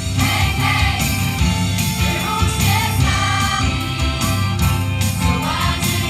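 A choir singing an upbeat song, backed by a live band with bass and drums, heard through the stage's amplified speakers from the audience.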